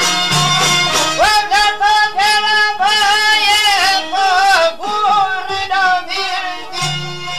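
Instrumental Albanian folk music: an ornamented lead melody with wavering notes comes in about a second in, over a steady beat and a low sustained bass.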